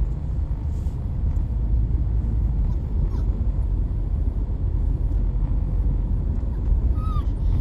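Steady low rumble of road and engine noise inside a moving car's cabin. Near the end comes a brief high cry from a pet riding in the car.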